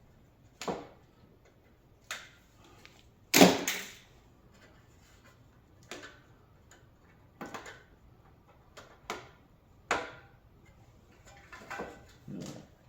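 Scattered knocks and clanks of metal parts and hand tools being handled while a coffee warmer is taken apart, about ten separate hits with a loud double clank about three and a half seconds in.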